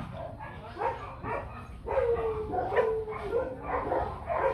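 Several puppies yipping and whining over one another, a constant noisy chorus, with a few longer drawn-out whines about two seconds in.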